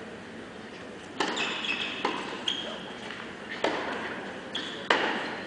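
Tennis rally on an indoor hard court: about half a dozen sharp racket-on-ball hits and ball bounces, roughly a second apart, starting about a second in, with brief high squeaks of tennis shoes on the court between them.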